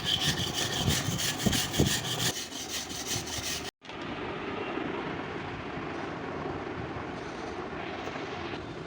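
Repeated rasping strokes of a hand tool scraping back and forth on a clutch plate, several a second. They stop abruptly a little under four seconds in, and a steady low background noise follows.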